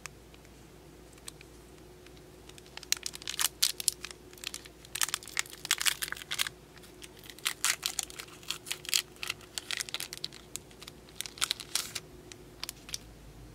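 Foil wrapper of a Pokémon trading card booster pack being torn open and crinkled by hand. It comes in repeated bursts of crackling that start about three seconds in and stop shortly before the end.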